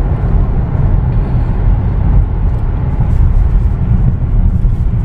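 Road and engine noise inside a car cabin while driving on an expressway: a steady low rumble with no distinct events.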